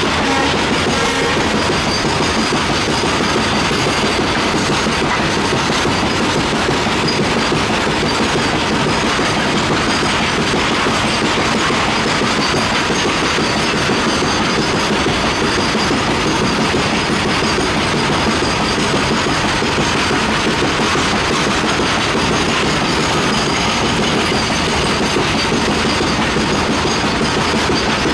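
Loaded coal freight wagons rolling past at close range: a steady rumble and clatter of steel wheels on the rails that holds at an even level throughout.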